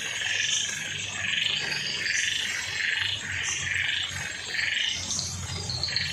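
Frogs calling in a steady run of repeated calls, about two a second. Near the end a faster series of short, higher-pitched pulses joins in.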